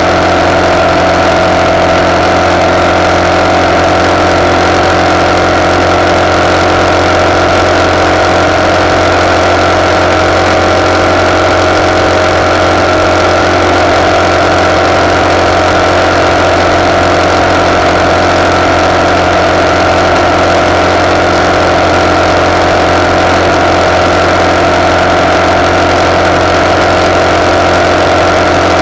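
RPS Hawk 250's single-cylinder four-stroke engine running at a steady, unchanging speed through its de-catted CRF230 exhaust, heard at the handlebars under a steady rush of wind.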